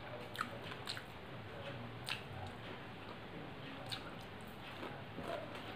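Wet chewing and smacking of a person eating rice and fish curry by hand, with about four sharp clicks.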